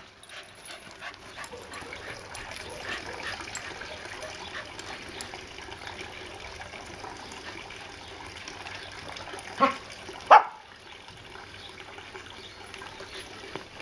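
Dogs playing together, with two loud, sharp barks close together about ten seconds in over a lower background of their movement and small play noises.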